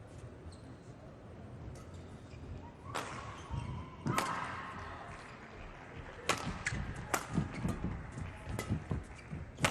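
Badminton rally: rackets strike the shuttlecock in sharp smacks, roughly one every half second to a second from about three seconds in, with short shoe squeaks on the court floor.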